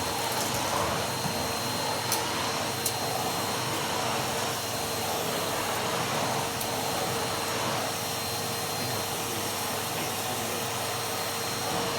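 Numatic Henry 160 vacuum cleaner running steadily, a rush of air with a high whine, its floor head working a thin carpet at full suction that lifts the carpet. A couple of light clicks come about two and three seconds in.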